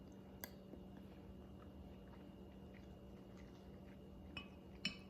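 Quiet eating sounds: faint chewing and a few light clicks of a utensil on a dish, the loudest click near the end, over a steady low hum.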